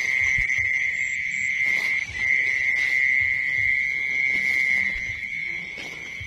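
Cricket trilling in one steady, high, unbroken note, with a brief break about two seconds in.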